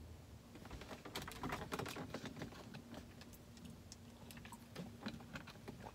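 Faint, irregular small clicks and taps, with a faint steady hum underneath from about two seconds in.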